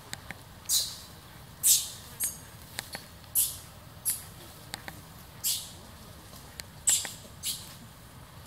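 Baby macaque giving short, high-pitched distress shrieks, about eight at uneven intervals, as an adult macaque grabs and pulls it by the tail.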